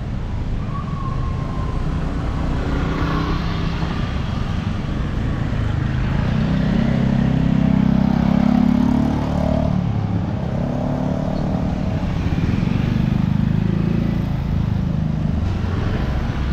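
Road traffic: motor vehicles running and passing close by, with engine notes rising and falling; the loudest pass comes about halfway through.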